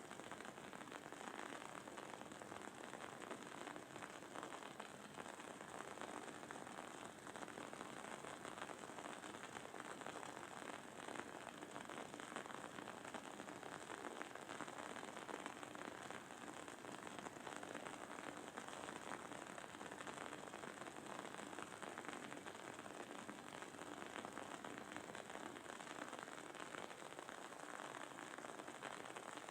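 Wooden candle wick burning with a faint, dense, steady crackle.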